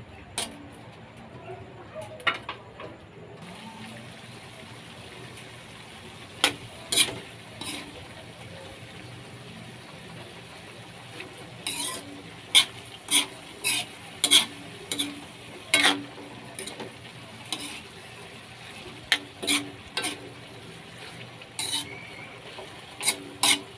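Metal spatula scraping and clanking against an aluminium wok as vegetables are stir-fried, in irregular runs of sharp strokes, over a steady faint sizzle from the pan.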